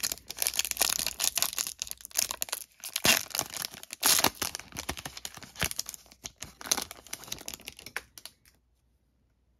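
Foil wrapper of a Panini Prizm football card pack being torn open and crinkled by hand: a dense crackling and ripping that stops about a second before the end.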